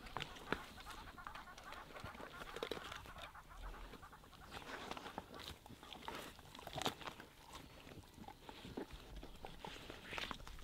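African wild dogs at a fresh impala kill: faint short squeaky, bird-like calls mixed with scattered snaps and clicks of tearing and chewing at the carcass.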